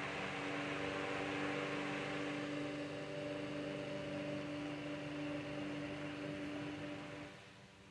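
1907 General Electric 'Pancake' 12-inch desk fan running on high: a steady motor hum made of several tones under the rush of air from its rewinged brass blades. About seven seconds in, the rush of air drops away sharply while the hum goes on.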